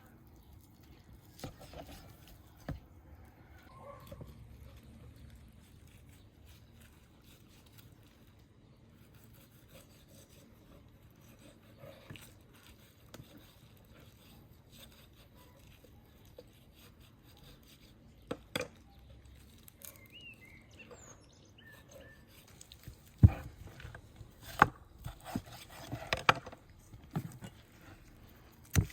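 Knife scraping and cutting meat off beef rib bones on a wooden board, with faint scraping and light clicks, then a run of sharp knocks on the board in the last few seconds.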